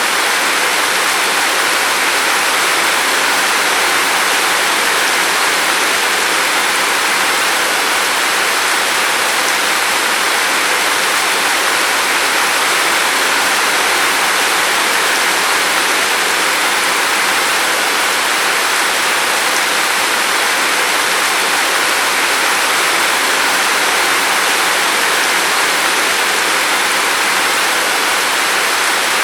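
Steady rain falling outside a window: a dense, even hiss with no separate drops standing out.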